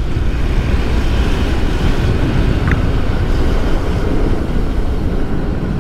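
Hero XPulse 200's single-cylinder engine running while the motorcycle rides along, a steady rumble mixed with wind noise on the microphone.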